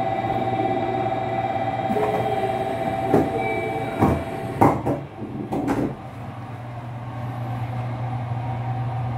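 Limited express train's sliding passenger door closing: a steady warning tone sounds for the first few seconds, then the door knocks and thumps shut with several sharp strokes between about three and six seconds in, leaving the steady hum of the carriage.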